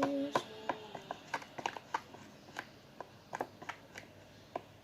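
Glue slime being stirred in a bowl, giving irregular sticky clicks and small pops, several a second at first and thinning out toward the end.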